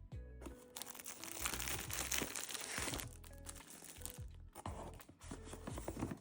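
Packaging being handled and opened: crinkling and rustling in two spells, with soft background music underneath.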